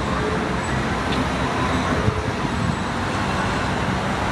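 Steady street traffic noise with a low rumble, motor vehicles running close by.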